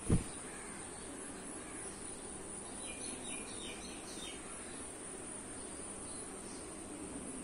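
Steady high-pitched insect drone, like crickets, with a single dull thud just after the start and a quick run of about five short bird chirps about three to four seconds in.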